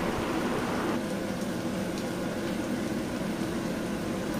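Mutton and fried onions sizzling steadily in hot desi ghee in a steel pot over high heat, with a few faint ticks.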